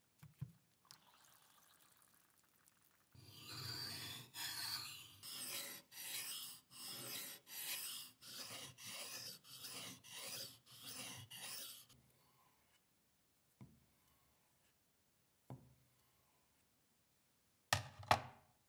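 Hand rubbing in quick back-and-forth strokes, about two a second for some nine seconds, on a cleaver's blade or handle during its restoration. A few sharp knocks follow, the loudest pair near the end.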